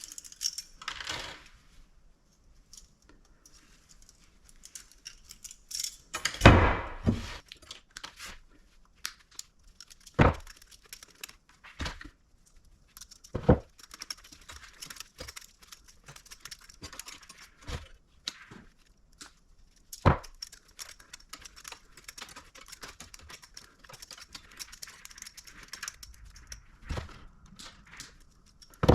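Scrap metal being worked and handled by hand: irregular metallic knocks and clinks with light scraping and rustling between, the loudest knock about six seconds in.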